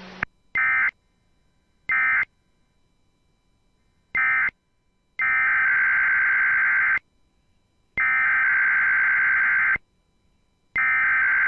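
NOAA Weather Radio SAME digital data bursts sent over the radio. First come three short end-of-message bursts, then three longer header bursts about a second apart, each a steady buzzy warble: the coded header that opens the next weekly test.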